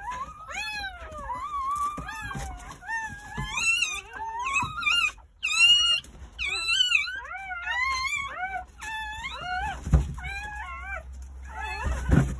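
Newborn Jindo puppies crying: a continuous run of short, high, wavering squeals, rising and falling in pitch and often overlapping. Two dull thumps come near the end.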